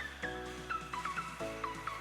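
Background music: an electronic track with held bass notes changing about every second under a short, repeating synth figure.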